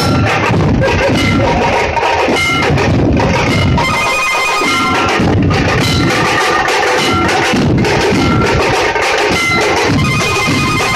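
A massed troupe of dhol barrel drums beaten together in a loud, dense, unbroken rhythm.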